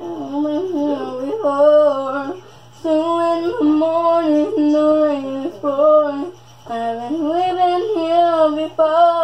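A young female voice singing unaccompanied in long, held, wavering notes, in three phrases with short breaks between.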